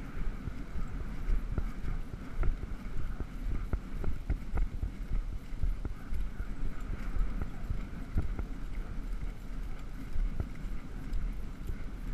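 A horse's hooves beating steadily on grass as it is ridden across a field, with wind rumbling on the microphone.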